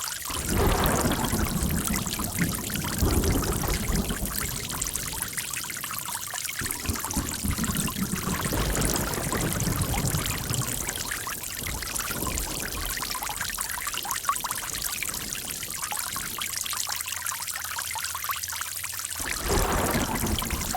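Running water trickling and gurgling without a break, with a deeper gushing that swells in and fades away several times.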